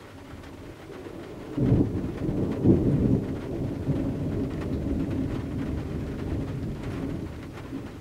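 Thunder heard from inside a vehicle's rear cargo area: a sudden loud clap about one and a half seconds in, a second crack a second later, then a deep rolling rumble that slowly fades. Rain patters faintly on the windows throughout.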